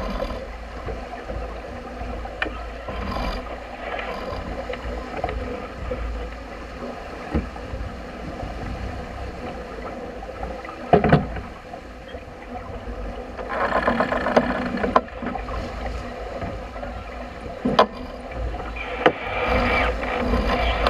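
Wind buffeting the microphone and water rushing along the hull of a sailing yacht driving through rough seas, with a few sharp knocks, the loudest about halfway through.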